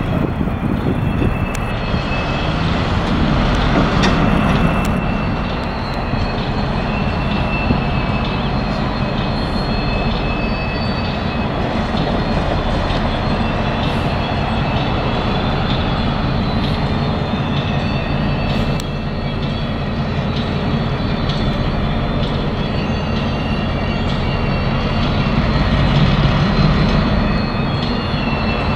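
EMD MP15 diesel switcher locomotive moving at low speed with a train of loaded tie cars; its diesel engine runs steadily. Thin, high wheel squeal comes and goes over the engine sound.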